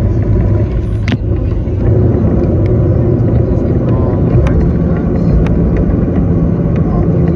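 Airliner cabin noise while taxiing: the steady low rumble of the jet engines at taxi power and the wheels rolling on the pavement, growing a little louder about two seconds in. There is a single sharp click about a second in.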